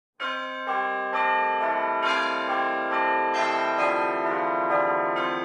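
Bells ringing in a peal, a new strike about every half second, the tones overlapping and ringing on.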